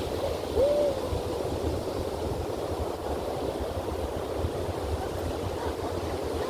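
Surf washing steadily on the beach, with wind rumbling on the microphone. Just over half a second in, one short tone rises and then holds briefly.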